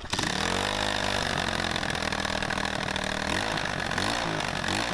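125cc four-stroke single-cylinder dirt bike engine idling, with a few brief wavers in engine speed in the second half. It runs a little rough, which the builder puts down to his homemade carburetor adapter plate on the intake.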